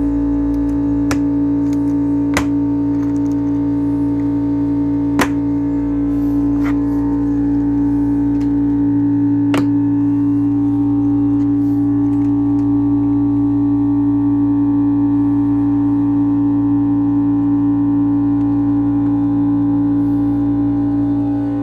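25-litre air compressor running steadily, giving a loud, even hum with a strong constant pitch. Several sharp knocks sound in the first ten seconds.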